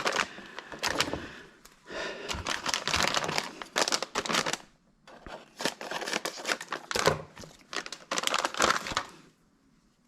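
Irregular crinkling and rustling handling noise made of many quick clicks, in bursts, stopping about nine seconds in.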